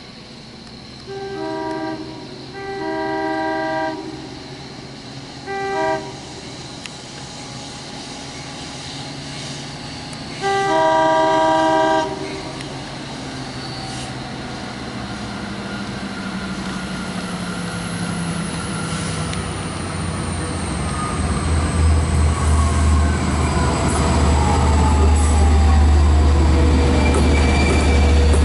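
Long Island Rail Road DE30AC diesel locomotive sounding its multi-tone horn in the grade-crossing pattern: two long blasts, a short one, then a final long blast. Then its diesel engine rumbles louder as it comes in and passes close by, with a falling whine.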